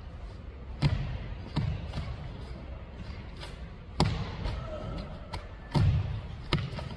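Foot stamps and strikes of a wushu routine on a wooden court floor: about five sharp thuds at uneven intervals, the heaviest about one, four and six seconds in.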